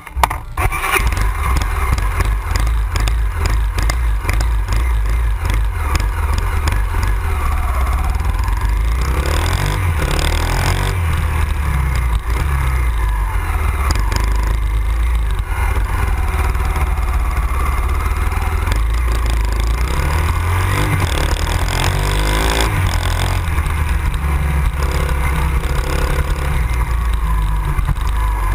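Honda XR 250 Tornado's single-cylinder four-stroke engine running under way, with a steady heavy rumble. The pitch rises and falls a few times as the throttle opens and the gears change.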